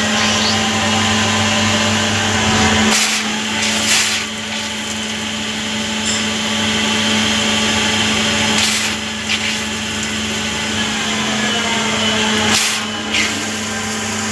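Metal-working machine tool running steadily with a motor hum, its low drone dropping away about three seconds in, with a few short noisy bursts of cutting.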